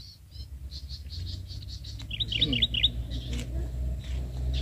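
Small birds chirping: a string of short high chirps, with a quick run of about half a dozen sharper chirps a couple of seconds in, over a low steady rumble.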